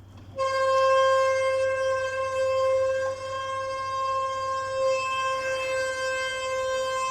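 Passenger lift, a Kone-modernised car, giving a loud, steady, high-pitched squeal on one held pitch that starts about half a second in. The squeak is the sign of a lift whose condition has badly declined.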